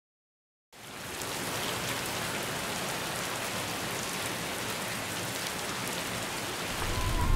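Heavy rain pouring down, a steady hiss that starts about a second in. A low rumble comes in near the end.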